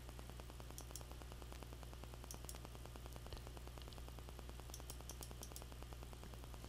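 Near silence: the faint steady hum and hiss of a computer recording setup, with a few faint mouse clicks.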